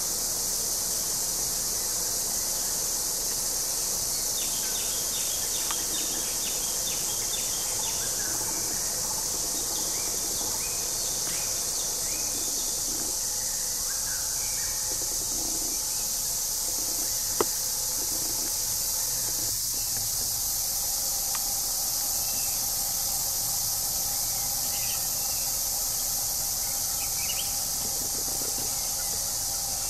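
Steady, high-pitched chorus of forest insects, with scattered short bird chirps between about four and twelve seconds in and a single sharp click about midway.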